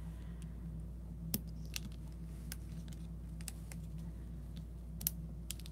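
Faint scattered clicks and ticks of fingers peeling adhesive glossy dot embellishments off their plastic sheet and pressing them onto a card, over a steady low hum.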